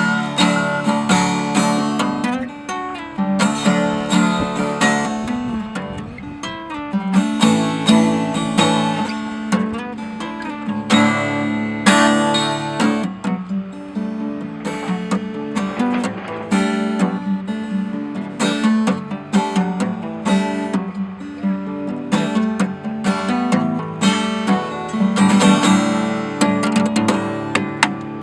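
Acoustic guitar played solo, a steady flow of plucked notes broken by sharp strummed chords.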